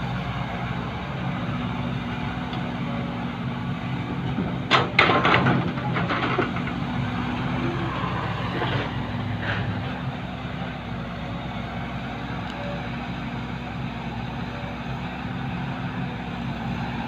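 Diesel dump truck engines running steadily, with a short cluster of sharp noisy bursts about five seconds in.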